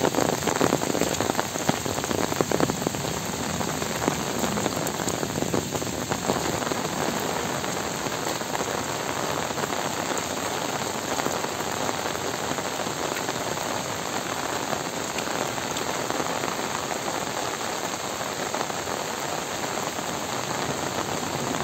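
Heavy rain falling steadily on trees, leaves and waterlogged ground, a dense even hiss, with sharper close drop hits in the first several seconds.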